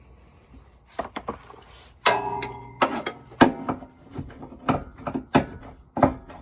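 Metal tool knocking and clinking against the 4L60E transmission's servo cover as it is worked loose. One ringing metallic clank comes about two seconds in, followed by a run of irregular taps.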